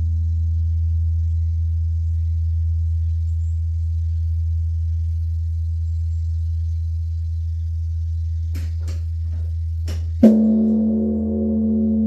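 Large bronze Korean Buddhist temple bell (beomjong): a deep hum lingers from the previous stroke, and about ten seconds in the bell is struck again with a loud blow. A ringing tone with several higher partials follows, wavering slowly as it decays.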